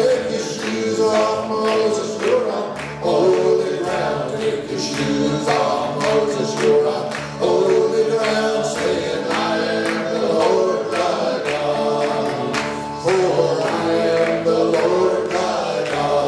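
A small live gospel band: several men singing together over electric guitar, electric bass and strummed acoustic guitars.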